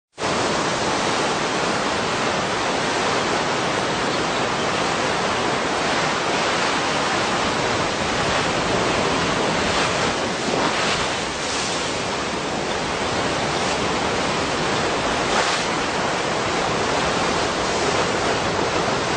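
Steady loud roar of rushing seawater from a tsunami surge, with a few brief louder swells partway through.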